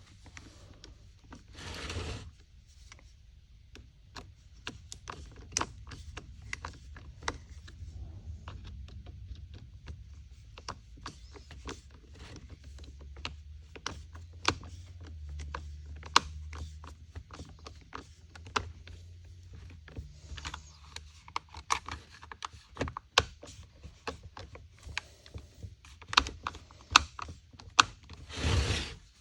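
Small plastic and metal parts of a chainsaw's top handle being fitted together by hand: scattered clicks, taps and light scrapes over a low steady hum. There are two short rushes of noise, one about two seconds in and one near the end.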